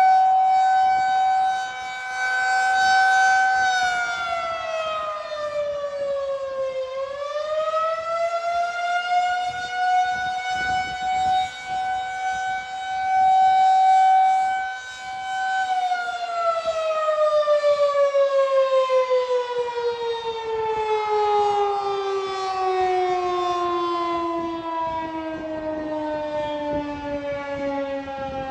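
Federal Signal 2001-SRNB rotating outdoor warning siren sounding its steady tone, its loudness swelling and fading as it turns. A few seconds in, the pitch sags and recovers. From a little past halfway it winds down in a long, slowly falling pitch at the end of the test signal.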